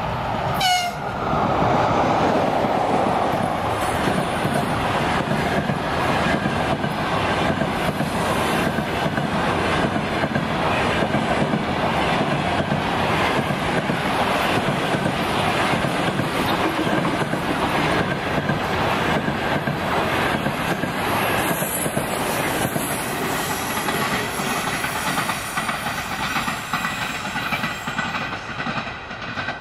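EP20 electric locomotive giving a short horn blast about a second in, then a long passenger train's coaches rolling past with a rhythmic clatter of wheels over rail joints, dying away near the end. The blast is a greeting to the trackside filmer.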